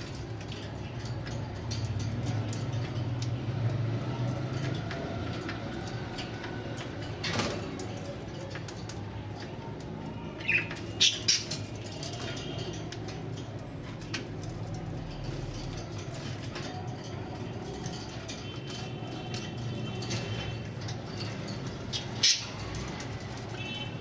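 Caged budgerigars fluttering their wings and shuffling on the perches, with a few short, sharp chirps about halfway through and another near the end, over a steady low hum.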